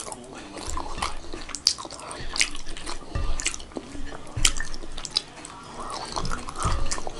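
Close-up wet eating sounds: chewing with sharp, irregular mouth smacks and clicks, and fingers mixing rice and daal in a bowl.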